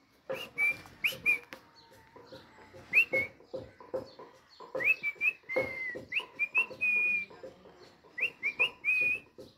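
Alexandrine parakeet giving soft, short whistled chirps, each a quick upward flick ending in a brief held note, in several groups, with scattered faint clicks.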